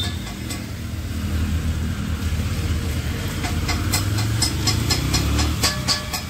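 A Honda commuter motorcycle's single-cylinder engine running as the bike pulls away, its pitch rising as it accelerates, then fading near the end; the engine has worn piston rings, per the mechanic. Background music with plucked notes comes in over it near the end.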